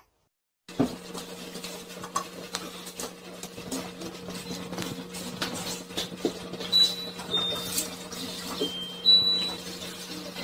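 Cats eating from shallow food bowls on a floor: many small clicks and clinks of the bowls and feeding, over a steady low hum. A few brief high tones come about two-thirds of the way through.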